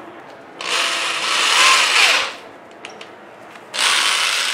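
Electric drill with the engine-starter attachment in its chuck, run twice with no load, each run lasting about one and a half to two seconds.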